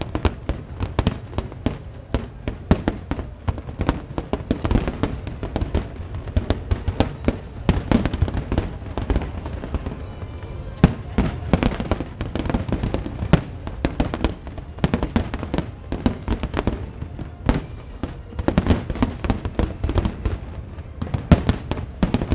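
Large fireworks display: a dense, irregular barrage of shell bursts and crackling, many bangs a second over a continuous low rumble, thinning briefly about ten seconds in.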